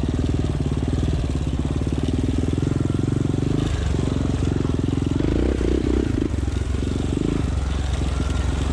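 Quad bike (ATV) engine running steadily, with a brief change in tone about five seconds in.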